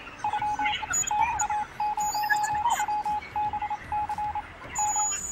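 Electric buzzer of a buzz-wire steady-hand game sounding one high beep tone that cuts in and out many times in short, uneven stretches. Each beep marks the metal loop touching the wire and closing the circuit.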